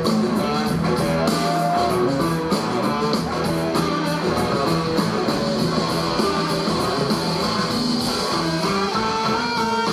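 Live blues-rock band playing an instrumental passage: two electric guitars, one a Gibson SG, playing lines over drums.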